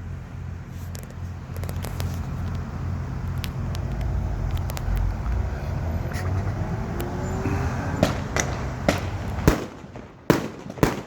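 A low steady rumble with faint crackling, then about eight seconds in a 25-shot fireworks cake starts firing: sharp, loud shots about every half second.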